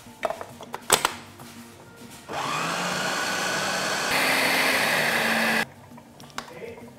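Food processor motor running for about three seconds, stepping up louder partway through and then cutting off suddenly, as it grinds cooked mung beans fine. Before it, two sharp knocks.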